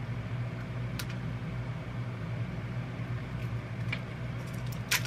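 Steady low mechanical room hum, with a few sharp clicks about one second in, near four seconds and near the end as small plastic mystery capsules are twisted and pried open by hand.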